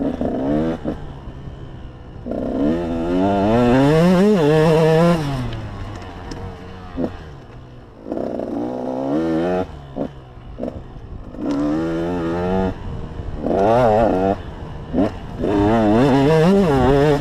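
A KTM 125 SX two-stroke motocross bike's single-cylinder engine being ridden wide open in repeated bursts of throttle. Its pitch climbs and falls in wavy sweeps, with quieter off-throttle stretches between the bursts, the longest about two to five seconds in.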